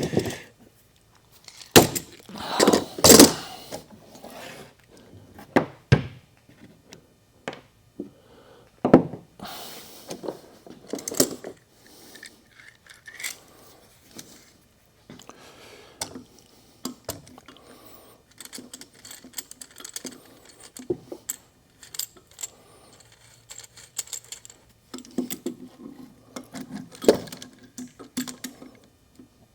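Scattered metal clinks and knocks of hand tools and valve parts being handled while a valve is taken out of a Ford 302 cylinder head, with the loudest knocks about two to three seconds in.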